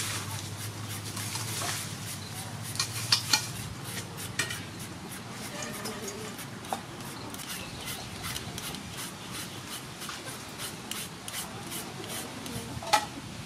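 Julienne peeler scraping down a peeled green mango in quick repeated strokes, shreds falling into a stainless steel bowl, with a few sharper clicks, the loudest near the end.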